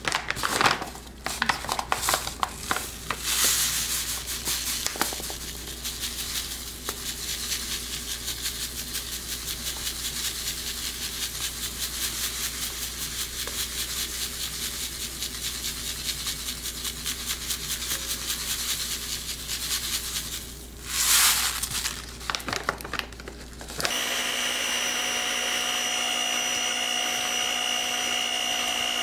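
Plastic bag crinkling, then granulated sugar pouring into a glass bowl of beaten eggs in a long steady hiss, with a short louder rustle of the bag. Near the end an electric hand mixer starts and runs steadily with a whine, beating the eggs.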